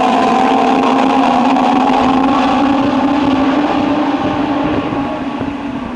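A pack of Legends race cars, with Yamaha motorcycle engines, running past together as a steady blend of engine notes. The sound fades over the last second or two as the field pulls away.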